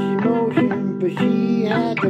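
Guitar music: plucked notes ringing over held tones, with several notes bending in pitch.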